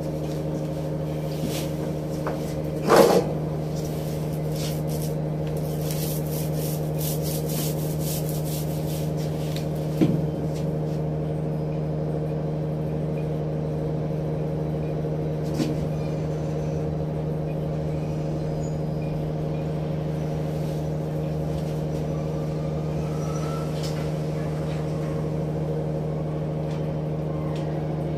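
Steady drone of a ship's machinery, with several fixed tones. A few metal knocks sound over it: the loudest about three seconds in, with a short ring, and a smaller one near ten seconds.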